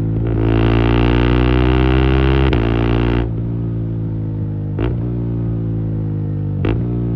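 KTM Adventure 390's single-cylinder engine through a de-catted custom exhaust, loud. The throttle opens and the revs climb for about three seconds, then it shuts off and the revs slowly fall, with a few short sharp cracks.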